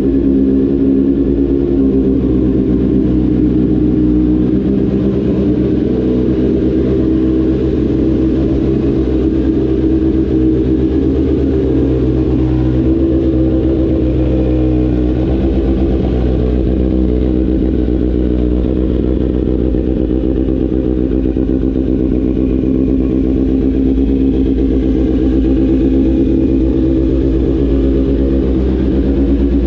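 Kawasaki Z900 SE inline-four running steadily through an aftermarket Austin Racing exhaust pipe, with a brief wobble in pitch about halfway through.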